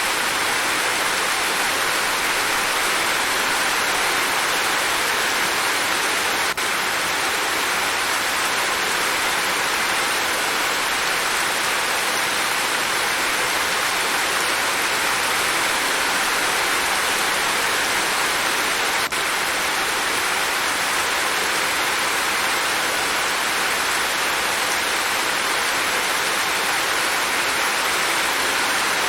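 Steady rain, an even unbroken hiss, with a faint click and a brief dip in level about six seconds in and again near twenty seconds.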